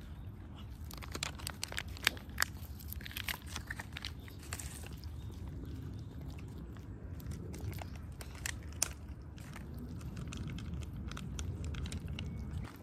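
Several cats eating dry cat food close up, with irregular sharp crunches of kibble being bitten and chewed. The crunching is densest from about one to five seconds in, with another loud crunch near nine seconds, over a steady low background rumble.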